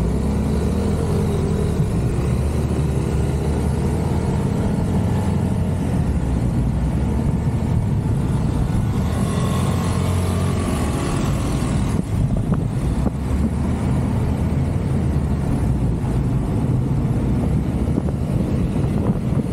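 Motor scooter engines running and riding along a road in a group, with road noise; the engine pitch rises in the middle as they pick up speed.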